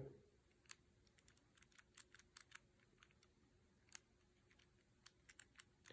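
Faint, scattered light clicks of a Master Lock 875 combination padlock's number wheel being turned and wiggled under shackle tension, each digit tested for play to decode the combination.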